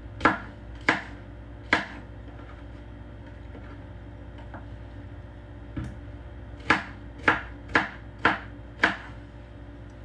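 Chef's knife chopping pineapple on a plastic cutting board: sharp knocks of the blade striking the board, three near the start, then after a pause a run of six at about two a second.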